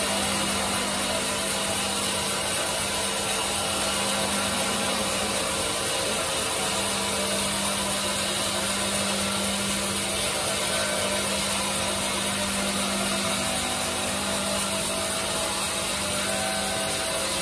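Large band sawmill running steadily, its blade cutting lengthwise through a hard teak log, with a steady low hum from the machine under the hiss of the cut.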